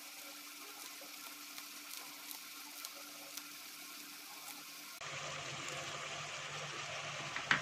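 Faint, steady sizzle of diced onion and tomato cooking in oil in a steel pan, with a few light snips of scissors cutting a green chili into it.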